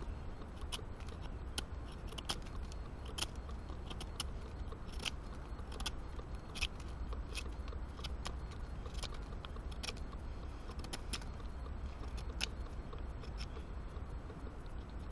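A fixed-blade bushcraft knife carving a piece of wood: irregular short scrapes and clicks as the blade bites and slices off shavings, over a steady low rumble.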